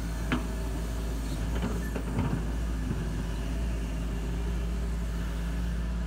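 Doosan DX140W wheeled excavator's diesel engine running steadily as the arm swings and the bucket digs into soil.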